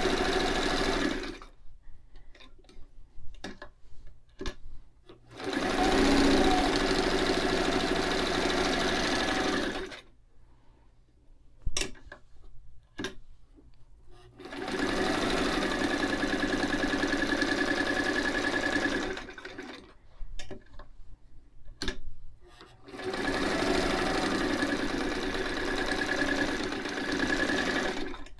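White 173 sewing machine stitching curves through a fabric sample in four short runs, stopping in between while the fabric is turned, with a few sharp clicks in the pauses.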